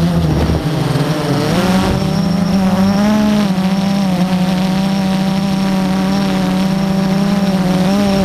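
Multirotor drone's electric motors and propellers whining steadily, the pitch wavering and stepping up briefly as the motors adjust, with strong wind buffeting the microphone.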